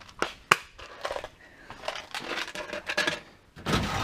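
Small plastic parts box of cotter pins being closed and handled: a few sharp clicks and light rattling, then a louder clatter near the end as it is set down and put away.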